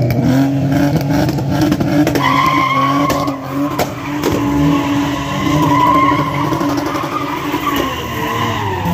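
A car engine revved hard and held at high revs while its tyres spin and squeal on the tarmac in a burnout, the engine note steady for most of the time and easing off near the end.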